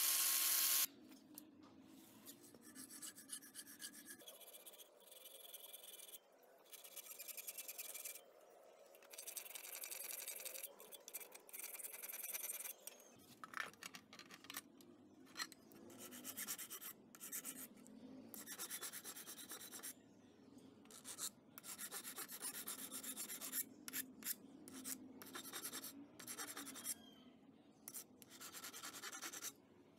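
Rasping hand strokes of filing or sanding on a steel screwdriver shaft clamped in a vise, coming in runs with short pauses between them. A disc sander running at the very start cuts off abruptly about a second in.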